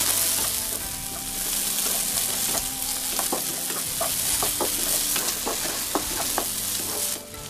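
Onion and green bell pepper stir-frying in hot oil in a nonstick wok, sizzling steadily while a wooden spatula tosses them with frequent short scrapes and taps against the pan. The sizzle cuts off suddenly near the end.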